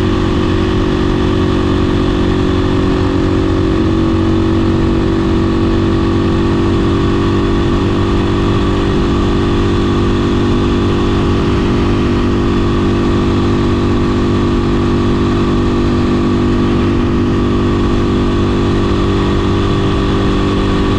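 Beta 500 RS single-cylinder four-stroke motorcycle engine running at a steady, unchanging speed.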